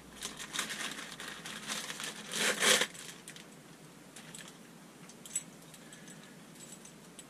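Plastic packaging crinkling and rustling while a shower hose is handled, loudest about two and a half seconds in, then a few light clicks of handling.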